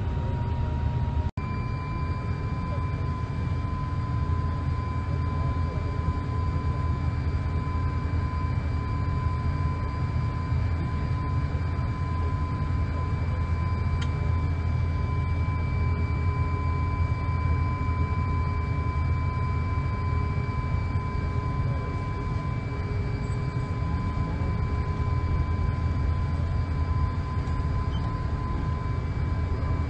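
Airliner cabin noise while taxiing: a steady deep rumble with a thin, steady high whine from the jet engines over it. The sound cuts out for an instant about a second and a half in, then carries on.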